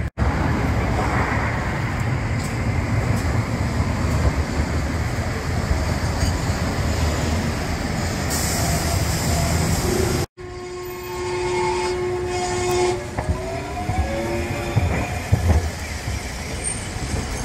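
A Kagoshima City tram running on street track, a steady heavy rumble of wheels and traffic with a brief hiss. After a cut, the tram's electric drive gives a steady whine that then rises in pitch as the tram pulls away, with a few sharp clacks of wheels on the rails.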